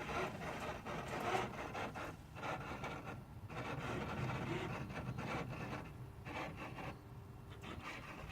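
An unidentified irregular rasping, scraping noise from a VW Golf 6 1.6 TDI with the ignition on and the engine not running. It comes in uneven stretches broken by short pauses.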